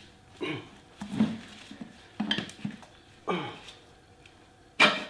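Tire levers working a motorcycle tire's bead onto the rim: metal lever scraping and clinking against the rim with squeaks from the rubber, in about five strokes roughly a second apart, the last near the end the loudest.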